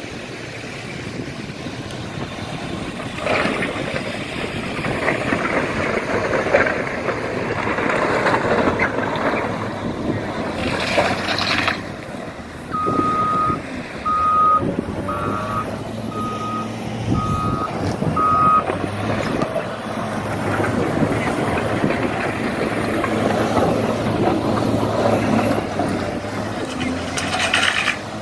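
A vehicle's reversing alarm beeps six times, about once a second, midway through, over a steady din of running vehicle engines and outdoor noise.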